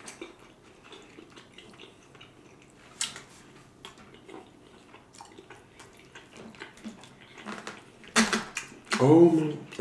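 Close-miked chewing and wet mouth sounds of a man eating smothered pork chop, with small utensil clicks and one sharp click about three seconds in. Near the end a loud sudden sound, then a short hummed voice sound.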